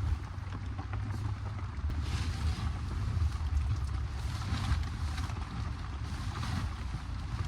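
Rainstorm noise: a steady low rumble with a hiss of rain that swells and fades a few times.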